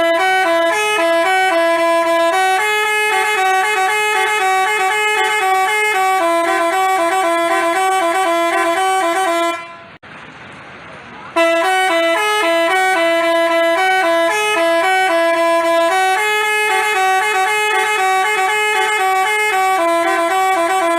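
Basuri-style telolet bus horn playing a melody of stepping notes. Its tune breaks off about ten seconds in for under two seconds, leaving only a hiss, then starts again abruptly.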